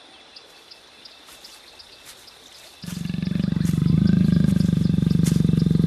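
A cartoon jaguar's low, steady growl. It starts about three seconds in after faint quiet, and lasts about four seconds.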